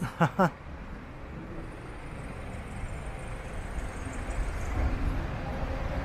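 City street traffic: a steady low rumble of passing vehicles that slowly grows louder, as if a vehicle is approaching.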